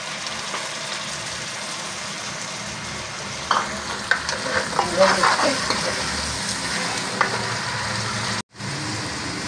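Tomatoes and green chillies sizzling in hot oil with fried onions, stirred with a steel ladle that scrapes and clinks against the pot, mostly in the middle of the stretch. The sound cuts out for an instant near the end.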